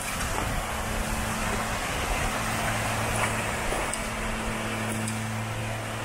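Steady rush of water from a small waterfall and rocky stream, with a low steady hum underneath.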